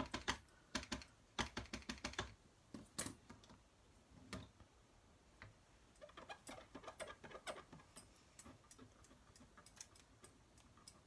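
Light, quick clicking as a Memento ink pad's plastic case is tapped against a stamp held in a stamping positioner to ink it, a rapid run of taps in the first two seconds, then scattered clicks and a second cluster of taps and knocks about six seconds in as the stamp is pressed onto the card.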